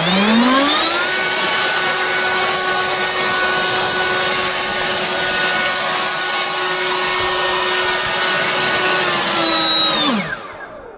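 Greenworks Pro 80-volt cordless leaf blower (GBL80300) being run: the fan motor spins up with a rising whine over about a second, then runs steadily with a loud rush of air and a high whine. About ten seconds in it winds down, the pitch falling as the trigger is let go.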